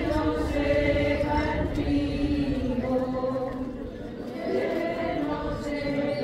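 A group of walking procession members, mostly women's voices, singing a religious hymn together in long held notes, with a brief lull about four seconds in.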